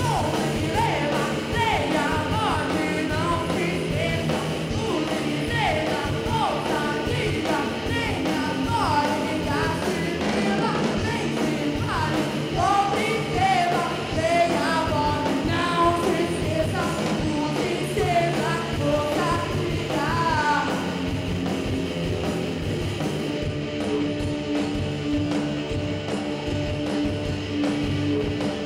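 Live rock band playing: a woman singing over electric guitars and drums. The vocal stops a little past twenty seconds in, and the band plays on without it, with a held guitar note.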